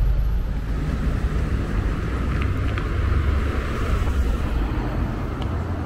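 Motor vehicle traffic on the street: a deep, steady engine rumble, with a few faint ticks.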